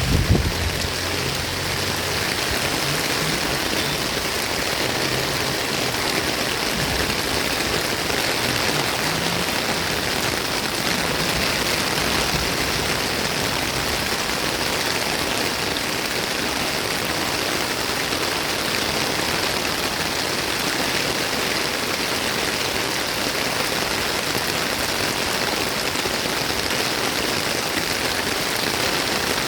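Steady monsoon rain falling, an even, unbroken hiss.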